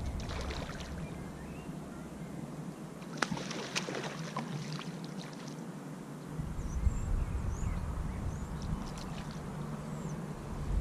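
Wind rumbling on the microphone, dropping away for a few seconds in the middle and then coming back, with a few sharp clicks and light water splashes about three to four seconds in as a hooked carp is played close to the bank.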